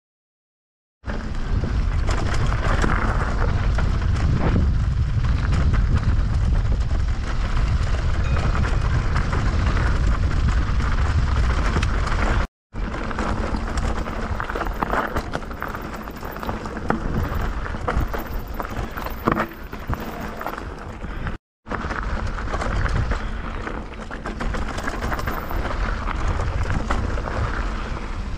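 Wind buffeting a handlebar or helmet camera's microphone as a mountain bike rides down a gravel trail, a heavy low rumble with tyres crunching over loose dirt and stones. It starts about a second in, and scattered clicks and knocks from stones and the rattling bike come through more in the second half.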